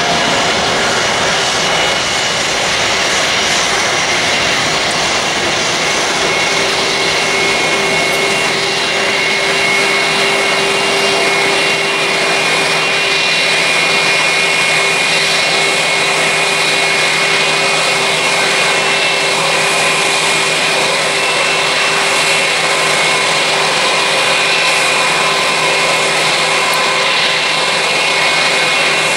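Boeing 777's General Electric GE90 turbofans running at high thrust through the takeoff roll. The jet noise is loud and steady, with high fan whines over it and a lower hum that joins about six seconds in.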